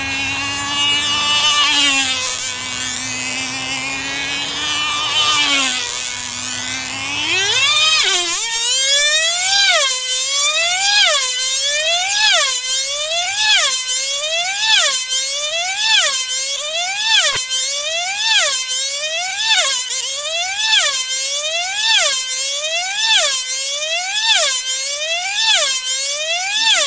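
The tiny high-revving 2.5 cc engine of an F2A control-line speed model aircraft. It runs at a steady pitch at first, then climbs sharply to a high-pitched whine about seven seconds in as the model gets up to full speed. From then on the whine rises and falls about once every 1.2 s as the model laps the circle at record speed.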